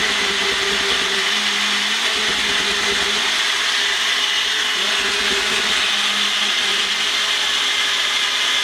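Bullet-style personal blender running steadily, its motor whining as it grinds a cup packed with fresh green onion, parsley, garlic and peppers into a seasoning paste.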